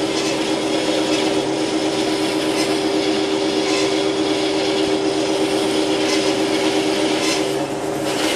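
Horizontal band saw running steadily, its blade cutting through aluminum stock: a constant motor hum under a hissing cutting noise.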